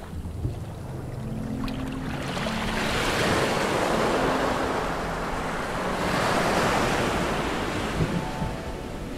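Water surging in shallow surf, swelling twice, heard underwater through a GoPro's waterproof housing.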